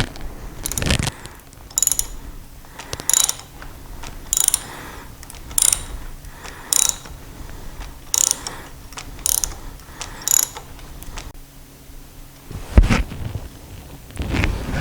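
Thread tap being turned by hand in a drilled hole in metal: a short, high-pitched ratcheting scrape at each turn, about nine in a row, roughly one a second. Near the end comes a single loud thump.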